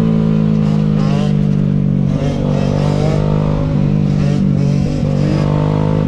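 Dirt bike engine running at a steady speed while being ridden, its note holding level throughout.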